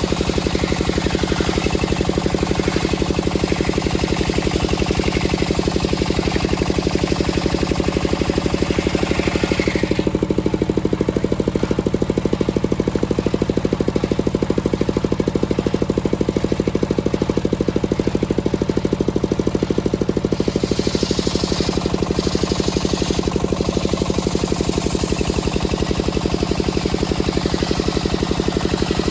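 Homemade circular-saw sawmill running under power, a steady engine drone with a hiss from the blade cutting a teak beam. The cutting hiss thins out for about ten seconds in the middle and picks up again near the end.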